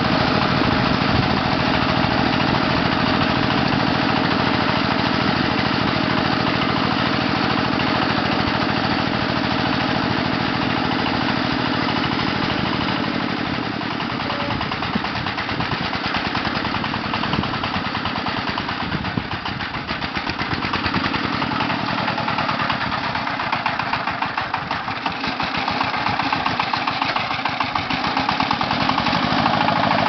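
Mini tractor's single-cylinder diesel engine chugging steadily with a fast knocking beat while pulling a plough through the soil. It fades a little around the middle as the tractor moves away, then grows louder again near the end.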